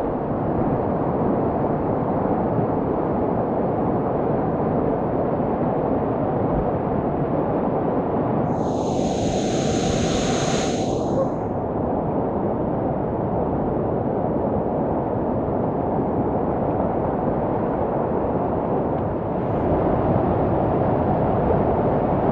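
Whitewater rapids rushing steadily around a kayak, heard close from the boat. A brighter hiss comes in for a couple of seconds near the middle, and the rush gets louder again near the end.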